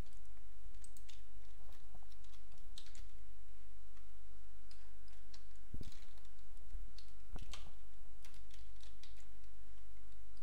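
Computer keyboard keys and mouse buttons clicking now and then, single scattered clicks, over a steady low electrical hum.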